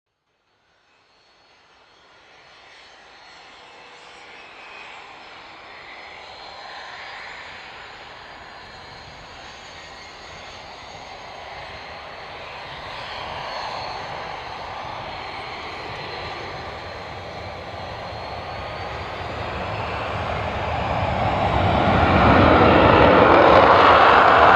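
Jet airplane approaching: a rushing jet engine roar that fades in and grows steadily louder over about twenty seconds as it comes closer.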